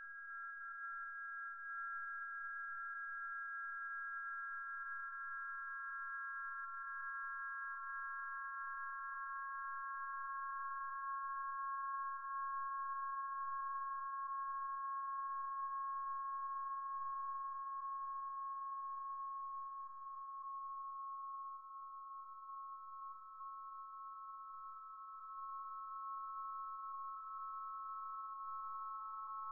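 Several steady electronic sine tones sounding together as a drone, drifting very slowly lower in pitch. A lower tone joins about two seconds in, the highest fades out about twenty seconds in, and another lower tone enters near the end.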